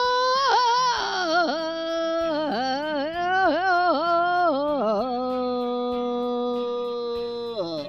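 One voice singing or humming a wordless phrase: a long held note, then a run of quick swooping dips in pitch, then another long held note that stops near the end.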